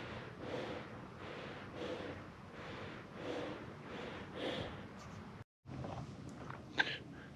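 A man's heavy, rhythmic breathing in and out, winded after climbing to the summit. It breaks off about five and a half seconds in, followed by a few faint clicks and one sharp click near the end.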